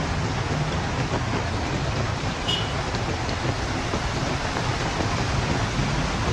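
Heavy rain and wind making a steady, unbroken hiss with a low rumble underneath. A brief faint high squeak about two and a half seconds in.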